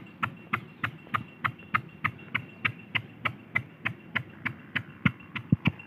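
Single-cylinder diesel irrigation engine running steadily on load, its exhaust giving a sharp, even knock about three times a second, with a faint steady whine.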